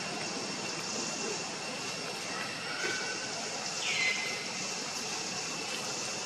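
Steady outdoor background: a constant hiss with a few steady high tones running through it. A short high-pitched call comes about four seconds in.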